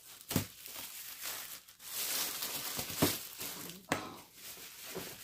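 Clear plastic wrapping crinkling and rustling as it is pulled off a large cardboard box, with several sharper crackles.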